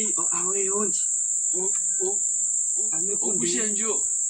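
A steady, high-pitched insect shrill, with a man's voice talking in short stretches over it.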